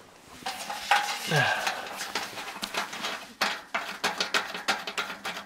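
Light metallic clicks and clinks of thumb screws being turned out of a kerosene heater's sheet-metal housing, with fingers and camera handling rubbing close to the microphone.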